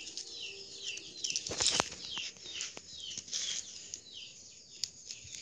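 A small bird chirping over and over, short high notes sliding downward a few times a second, with a few sharp knocks about a second and a half in.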